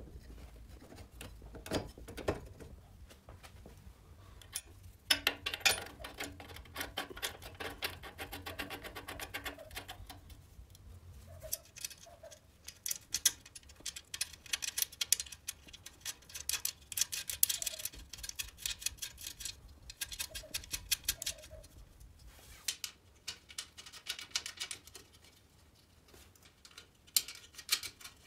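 Metal parts of a Riga 12 moped's front fork, handlebar clamp and mudguard stays being fitted by hand: clusters of quick clicks, taps and rattles of metal on metal, with short pauses between them.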